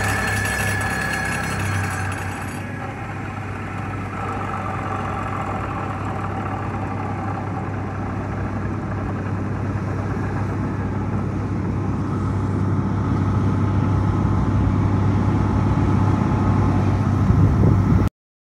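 Steady low drone of a vibratory pile-driving rig: a ThyssenKrupp MS-10 vibratory hammer and its diesel power unit running. It grows louder through the second half and stops abruptly near the end.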